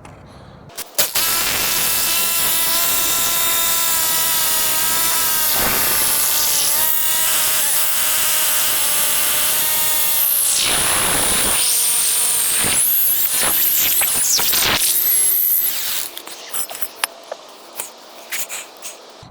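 Power drill boring a 1/2-inch anchor bolt hole into a concrete slab, its motor whining steadily for about fifteen seconds with its pitch dipping a few times under load, then stopping. A few short small knocks follow.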